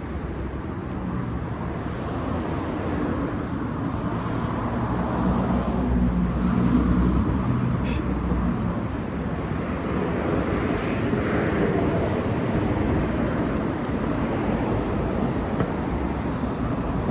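Steady low outdoor rumble, swelling a little about five to eight seconds in.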